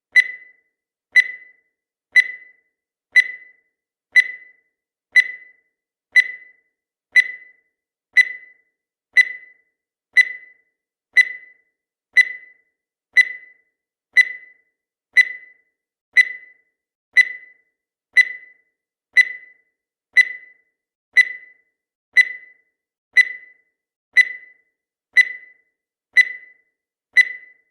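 Countdown timer tick sound effect: one short, sharp tick every second, each with a brief ringing tail on a single pitch.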